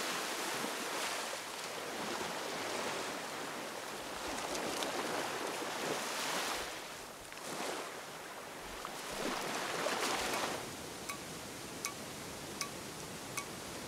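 Ocean surf breaking on a beach, the rush of the waves swelling and fading several times. For the last few seconds a steadier, quieter rush.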